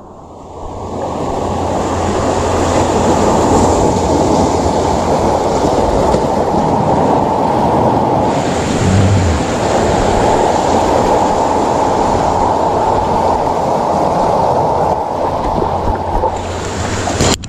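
Steady rushing noise of sea surf washing against a rocky shore, swelling in over the first couple of seconds, with a brief low thump about nine seconds in.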